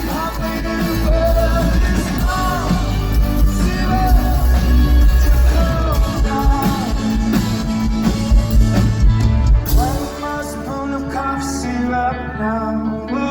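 Rock band playing live with a sung vocal over guitars and drums. About ten seconds in, the heavy bass drops out and the music thins to a quieter passage.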